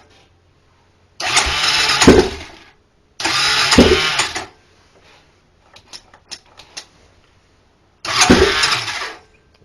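Honda 400EX ATV's single-cylinder four-stroke engine being cranked over in three short bursts of about a second each, without catching: a no-start despite choke and good compression. A few faint clicks come between the second and third tries.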